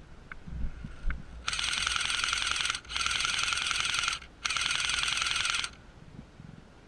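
Airsoft gun firing on full auto in three bursts of about a second each, a rapid mechanical rattle of shots. A few faint clicks and thumps come just before the first burst.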